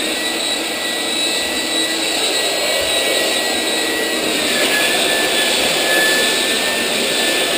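Electric belt sander running steadily, sanding the edges of two clamped plywood side planks to make them identical, with a high whine over the sanding noise. The whine drops slightly in pitch a little over halfway through.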